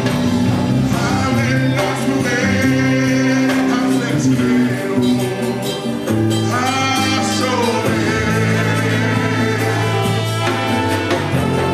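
A Spanish-language worship song performed live: a man sings lead through a microphone over sustained instrumental notes, with the congregation singing along.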